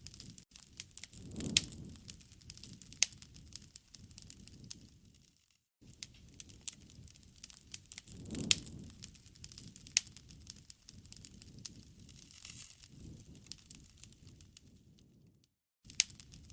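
Wood campfire crackling, with scattered sharp pops over a low rushing of flame that swells twice. The sound cuts out completely for a moment twice.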